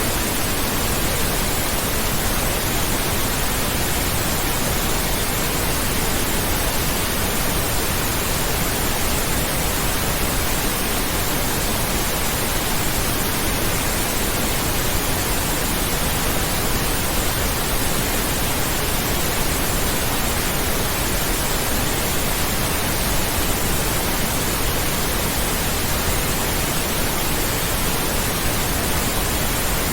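Steady pink noise: an even, unchanging hiss spread across all pitches, with no tone, rhythm or break.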